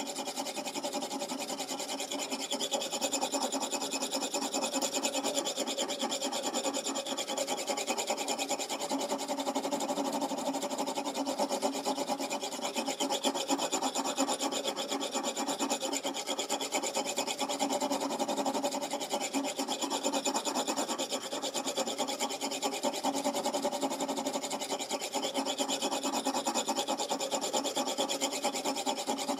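An oiled sharpening stone stroked back and forth along a kitchen knife's edge in a guided sharpener: a steady scraping of rapid, even strokes.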